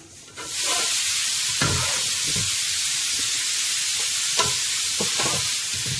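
Chicken gravy sizzling in an aluminium pot, a steady hiss that sets in about half a second in, while a metal ladle stirs it and scrapes against the pot several times.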